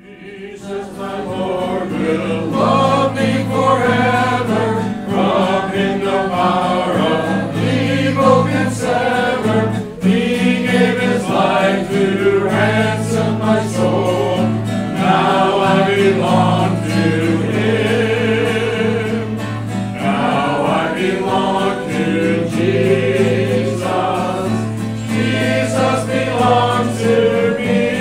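A congregation singing a hymn together with guitar accompaniment, fading in over the first couple of seconds.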